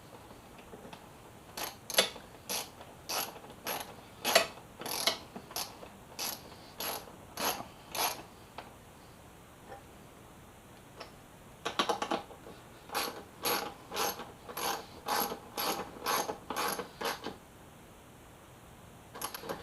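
Hand socket ratchet clicking as it tightens the headlight mounting bolts, one sharp click per back-swing of the handle. It goes in two runs of regular clicks with a pause of a few seconds between them, the second run a little faster.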